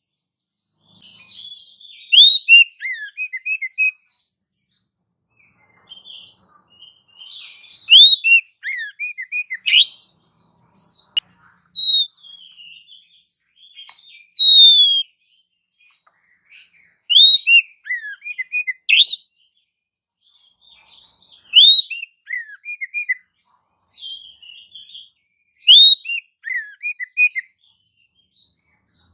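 Bird calls played as a lure for trapping birds (pikat): high chirps and whistles in repeated phrases, each a sharp rising whistle followed by a few short falling notes, recurring every couple of seconds with chattering in between.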